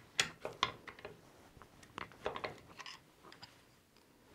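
Light metal clicks and clinks of a steel bench vise being worked and of the socket and plastic wiper arm being handled in its jaws, with the new bearing just pressed in. There are several quick clicks in the first second and another cluster about two seconds in.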